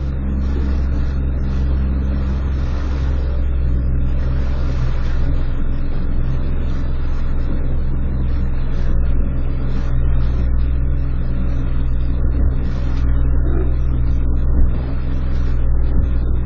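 A small fishing boat's engine running steadily with an even low hum.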